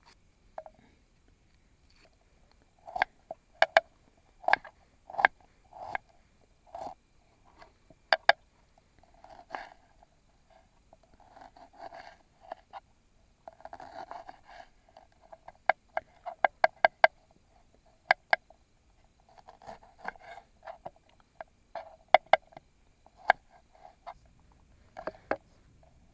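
Knife chopping vegetables on a cutting board: irregular sharp taps and knocks, some in quick runs of several strokes, with soft rustling in between.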